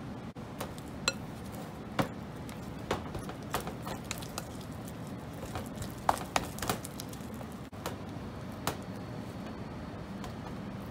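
A spatula stirring and scraping warm, sticky gyuhi (mochi) dough in a glass bowl, with irregular sharp taps and clicks against the glass, over a steady low hum.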